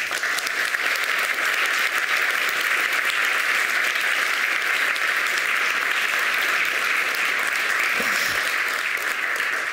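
Audience applauding in a lecture hall, a steady round of clapping that starts at once and fades away near the end.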